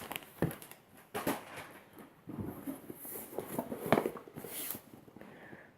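A product box being handled and opened: irregular knocks and clicks with bursts of rustling.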